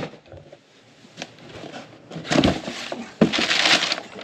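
A cardboard boot box being opened and the packing paper inside rustled and folded back, in a couple of noisy bursts over the second half.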